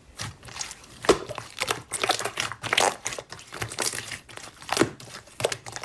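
Handfuls of glossy white slime pressed and stretched by hand, giving irregular sticky clicks and squelches.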